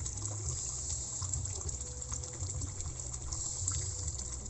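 Steady rush of running water, with a low rumble underneath.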